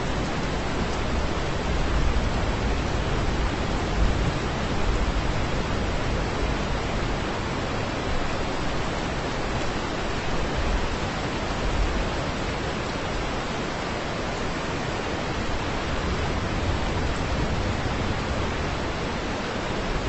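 Heavy rainstorm: a steady, even hiss of downpour with an uneven low rumble beneath it.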